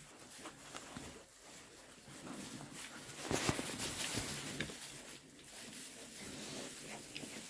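Oxford Sandy and Black piglets rustling and pattering about in straw bedding, louder about halfway through.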